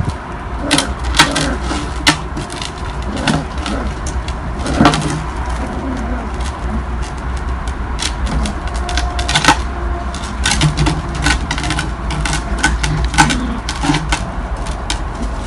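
Airedale terrier puppies playing on paving stones: a scatter of sharp clicks and knocks from claws on the slabs and a plastic disc being pawed and pushed, over a steady low rumble.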